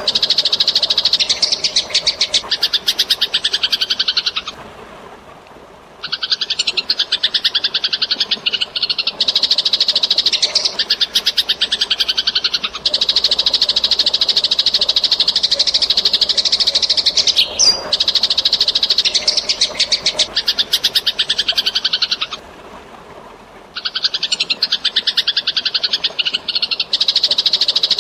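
Eurasian tree sparrows giving dense, rapid fighting chatter, with faint running water beneath. The chatter breaks off twice for about a second and a half, about five seconds in and again near the end.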